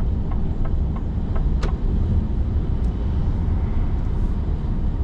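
Steady engine and road noise inside a lorry cab cruising at motorway speed. In the first second and a half a light, even ticking of about three a second comes from the turn indicator, set for the exit.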